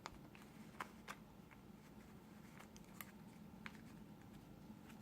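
Faint, scattered clicks of a 3x3 Rubik's cube's layers being turned, about half a dozen over a few seconds, against near silence.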